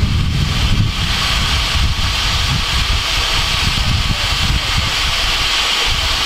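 Steady hiss of steam escaping around the cylinders of a standing GWR Saint-class 4-6-0 steam locomotive, No. 2999, with wind gusting and rumbling on the microphone.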